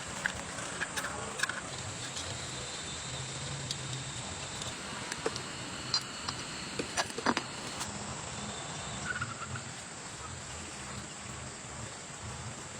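Insects chirping over a steady outdoor hiss, with a scattering of sharp clicks and knocks, the loudest about seven seconds in.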